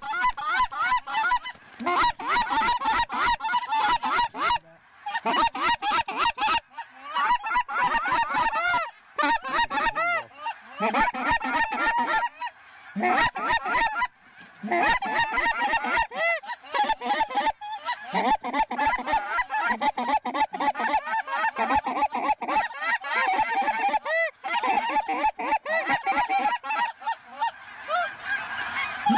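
A large flock of lesser Canada geese calling all at once, a dense, continuous chorus of overlapping honks and clucks, broken off briefly a few times.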